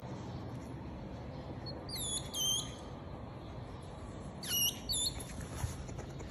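Newborn hedgehogs giving short, high peeping calls: two about two seconds in, then a quick run of three or four about four and a half seconds in, over a faint steady hiss.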